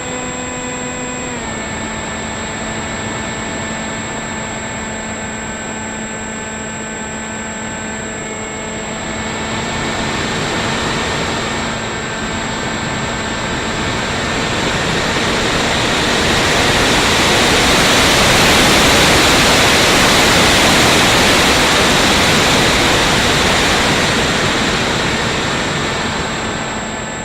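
Electric RC plane's 2216 2000kv brushless motor and 6x4.5 propeller running: a steady whine that steps down a little in pitch about a second in. From about a third of the way through a rushing air noise builds over it, loudest in the later part, then eases off near the end.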